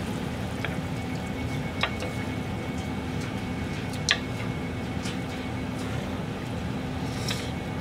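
A metal ladle clinking a few times against a frying pan of tomato-stewed chicken, over a steady kitchen hum.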